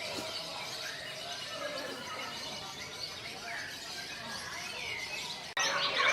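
Many caged songbirds chirping and singing together in a dense mix of short calls and whistled glides. Near the end the song jumps louder and closer, with fast trills.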